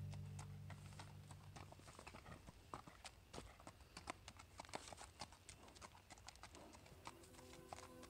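Faint clip-clop of a Quarter Horse's hooves on a gravel road, a quick, uneven run of light clicks. A song's low notes fade out over the first two seconds, and another tune comes in near the end.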